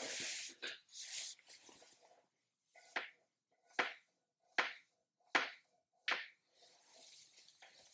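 Jacket fabric rustling as a person shifts and slumps across a desk, then five short sharp smacks, evenly spaced about three-quarters of a second apart, followed by faint rustling again.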